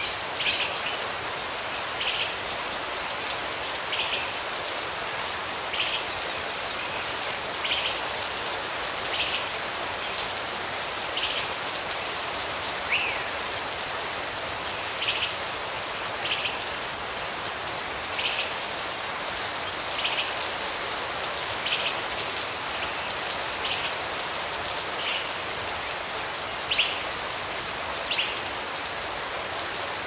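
Steady rain falling, an even hiss, with a short high chirp repeating about every two seconds.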